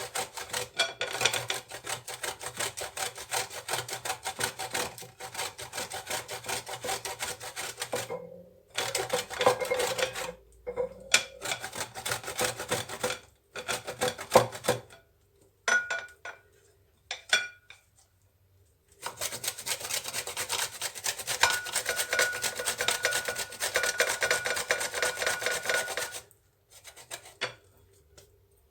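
Quick rasping strokes of a frozen whole lemon, peel and all, grated on a coarse grater, hard going because the fruit is frozen. The strokes come in long runs with short pauses, thin out around the middle and stop near the end.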